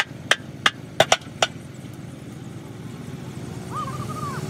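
Hard, sharp clacks of rocks knocking against rock, six in quick succession in the first second and a half, over a steady low rumble of a vehicle engine.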